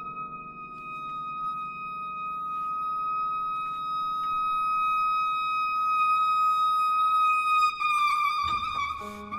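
Clarinet in A holding a single high note without a break, sustained by circular breathing and swelling gradually from very soft to loud, over the fading resonance of a held piano chord. Near the end the clarinet tone wavers and a low piano note comes in.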